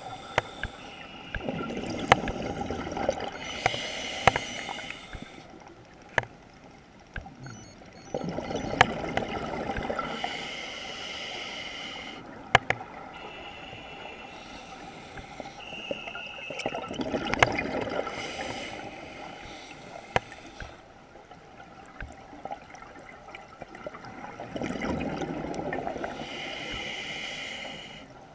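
Scuba diver's regulator breathing heard underwater: about four breaths, each with a rushing burst of exhaled bubbles alternating with a higher hiss, spaced seven to eight seconds apart. Scattered sharp clicks run through it.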